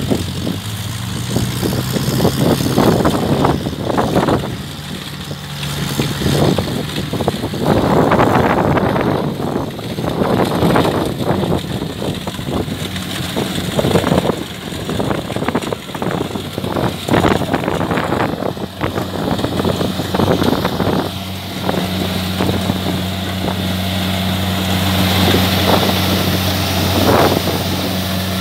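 Kubota DC70 combine harvester's diesel engine running steadily at working speed while harvesting rice, with gusts of wind buffeting the microphone.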